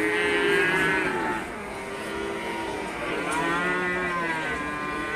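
Cattle mooing: two long moos, one fading out about a second and a half in and another starting around three seconds in.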